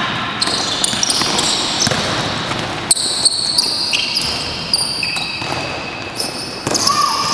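Basketball game on an indoor court: sneakers squeaking again and again on the floor as players cut and stop, and the ball bouncing, in a large echoing sports hall.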